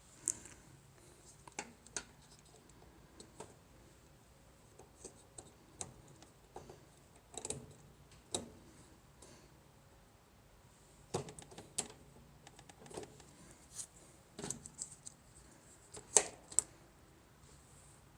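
Scattered clicks, taps and scrapes of hands working on washing-machine parts and tools, with a sharper knock about 16 seconds in.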